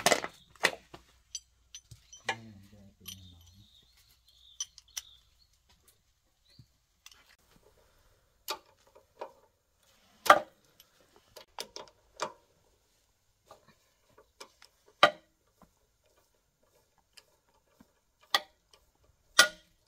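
Irregular metal clicks and clinks of a T-bar socket wrench on the bolts of a walk-behind tractor's engine, with a few sharper knocks.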